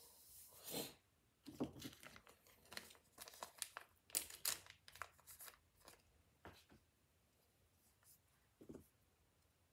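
Faint crinkling and tearing as something small is peeled and torn by hand: a scatter of short crackles for about four seconds, then a few isolated ticks.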